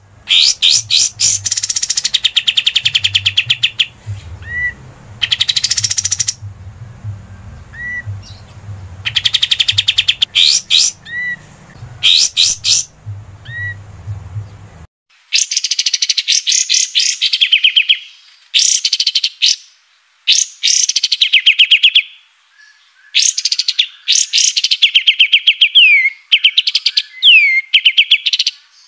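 Kapas tembak songbird singing in loud bursts of rapid trills of one to four seconds each, with short single whistled notes between the bursts in the first half. A faint low hum under the first half cuts off abruptly about halfway through, where one recording gives way to another.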